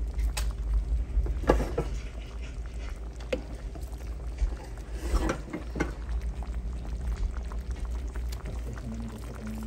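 Pot of black glutinous rice boiling in coconut milk, bubbling with wet plops and a few sharper clicks, over a steady low hum.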